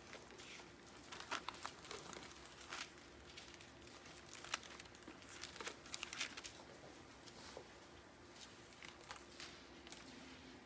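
Thin Bible pages being turned and rustled by hand: a scatter of faint, irregular crinkles and flicks.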